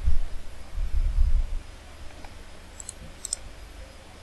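Computer mouse clicking: a few sharp clicks in quick succession about three seconds in, with dull low thumps near the start and about a second in.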